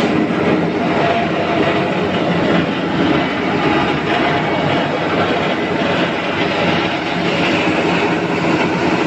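Stainless-steel coffee huller running, a steady, dense mechanical clatter.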